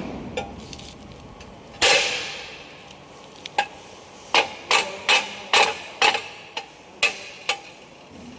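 Metal struck with a hammer: one hard, ringing blow about two seconds in, then a run of about ten lighter, ringing strikes at roughly two a second.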